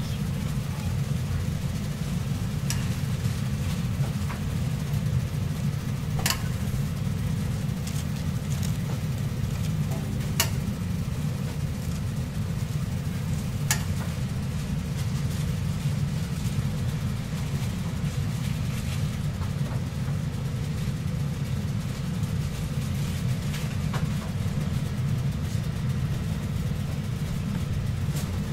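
Steady low machine hum with no change in pitch, with a few faint clicks now and then.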